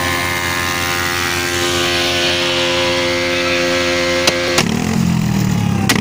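Motorcycle engine idling steadily close by. About four and a half seconds in, the sound changes to a deeper engine note, with a few sharp clicks.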